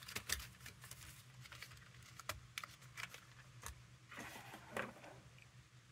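Faint, scattered light clicks and taps of wooden pencils being handled and set down on a tabletop, with a couple of short rustles near the end.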